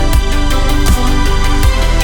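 Background music: electronic track with a heavy bass and a steady beat.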